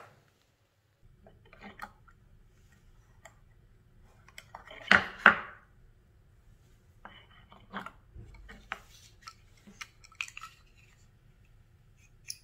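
Small metallic clicks and knocks of a steel planer blade being handled and set into a handmade plywood gypsum-board planer, with two sharp clicks about five seconds in as the loudest.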